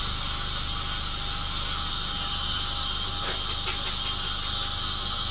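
Dental drill running steadily: a high hiss of air and water spray with a thin whine, as a tooth is ground down and rounded off.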